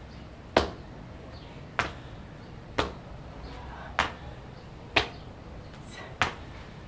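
Sneakers landing on a tiled floor during drop squats to hops: six sharp slaps, about one a second.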